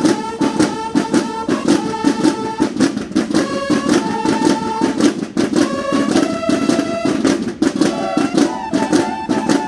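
A banda de guerra plays: snare drums beat a fast, dense rhythm under bugles sounding held notes.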